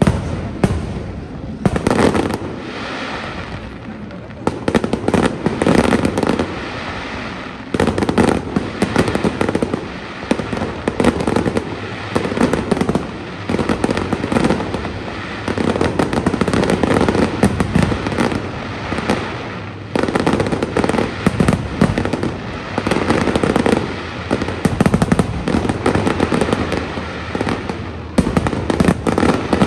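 Fireworks display: a continuous barrage of sharp bangs and crackle in quick succession, with brief lulls between volleys.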